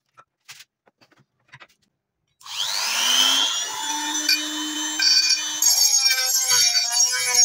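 Handheld rotary tool with a grinding stone spinning up, its whine rising about two and a half seconds in, then grinding the steel blade of an old file knife, the whine wavering as the stone bites. Before it starts there are only a few faint handling clicks.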